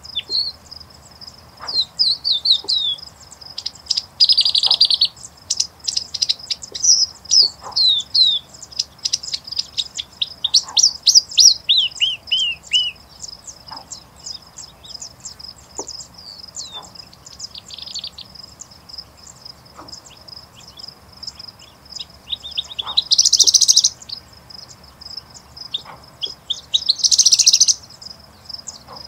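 Singing bush lark (Horsfield's bushlark) singing: long runs of quick, high chirps and downward-sliding whistled notes, with louder buzzy phrases a few seconds in and twice near the end.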